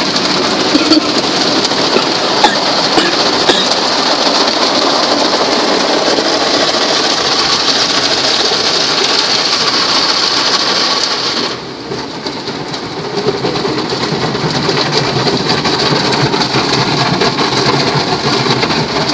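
Ryko Softgloss Maxx soft-touch car wash heard from inside the car: water spray and spinning cloth brushes beating on the body and glass, a dense rain-like noise. About twelve seconds in it drops off suddenly, then picks up again a second or so later.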